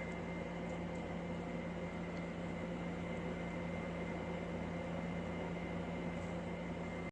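Steady mechanical hum with a low drone and a faint high whine, unchanging throughout.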